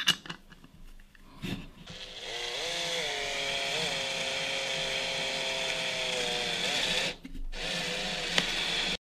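Power drill spinning a socket on a flexible shaft extension to tighten the nut that clamps a plywood pulley blank in its jig. A few clicks of the socket going onto the nut come first. The motor then speeds up about two seconds in, runs steadily with a brief wobble in pitch, and winds down near the end.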